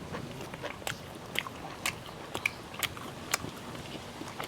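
Close-up eating sounds: a person chewing a mouthful of dosa and chicken, with short wet mouth clicks about twice a second.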